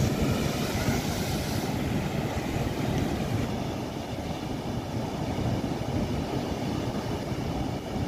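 Ocean surf breaking against a rocky shore: a wave bursts into spray at the start, and its hiss of foaming water fades over the first couple of seconds into a steady low rumble of surf.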